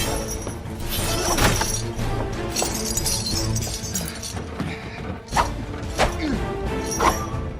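Steel swords clashing in a fight, several sharp ringing clangs at irregular intervals, over orchestral film score.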